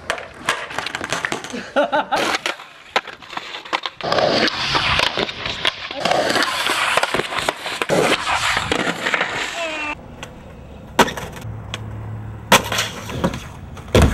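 Skateboarding: wheels rolling on pavement with several sharp clacks of the board popping and landing, in a run of short takes.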